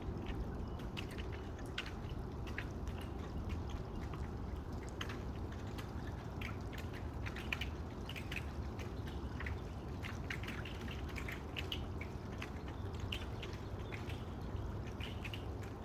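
Rain falling with water dripping, many small sharp ticks of drops striking hard surfaces scattered over a steady low rush.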